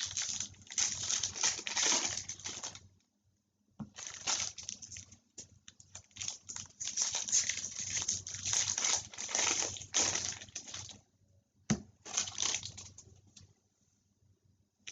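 Foil wrappers of 2019 Bowman baseball card packs crinkling and rustling as the packs are handled and opened, in long spells with short pauses, and a single sharp tap near the end.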